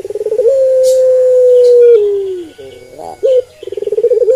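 Barbary dove (Streptopelia risoria) cooing. A quick rolling trill runs into one long, steady note, which drops in pitch and fades about two and a half seconds in. After a short pause and a brief note, the rolling trill starts again near the end.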